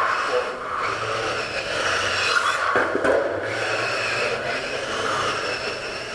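Electric Tamiya M05 radio-controlled touring cars running laps on a carpet track: a high motor and gear whine with tyre rush that swells and fades as the cars pass and move away.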